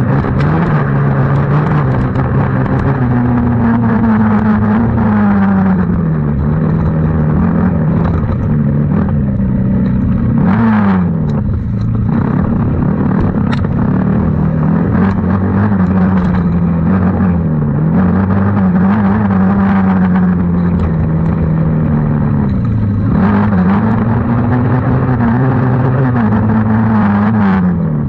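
Small 90cc youth racing engines running hard, their pitch climbing and then dropping sharply every few seconds as the throttle is rolled on and off and the gears change.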